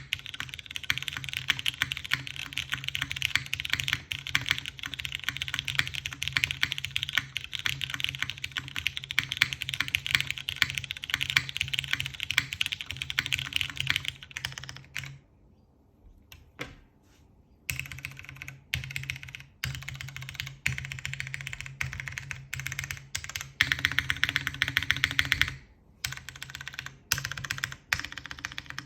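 Avo Muse TKL mechanical keyboard with Cherry MX Brown tactile switches on a polypropylene plate and GMK keycaps, being typed on quickly and steadily. Around the middle the typing stops for about two seconds, then resumes in slower, uneven runs with another fast burst near the end.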